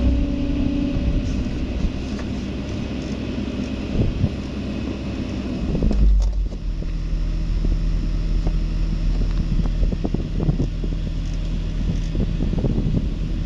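Diesel engine of a Kobelco SK excavator running under load. Its pitch drops and settles about six seconds in, with scattered knocks and clatter near the end.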